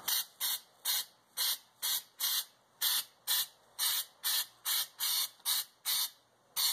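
Aerosol can of spray-on truck bed liner sprayed in short bursts, about two a second, each press of the nozzle giving a quick hiss.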